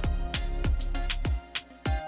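Background music with a steady beat: deep bass-drum kicks that drop in pitch, crisp hi-hat hits and held notes.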